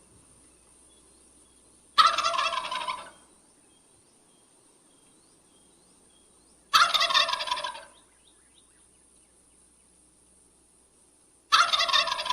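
A male wild turkey gobbling three times, each a loud, rapid gurgling gobble about a second long, roughly five seconds apart.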